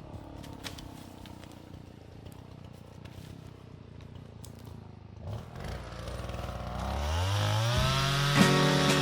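Chainsaw engine running low and faint, then revving up sharply about six seconds in and holding at high speed near the end.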